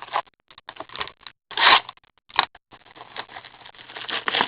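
A hockey card box and its wrapping being torn open and handled: irregular tearing, crinkling and scraping of plastic wrap and cardboard, with the loudest rips about one and a half and two and a half seconds in.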